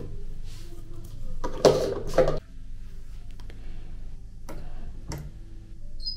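Fabric softener being poured into a washing machine's dispenser, with plastic handling sounds about one and a half to two and a half seconds in. Two sharp clicks follow, then a short high beep near the end.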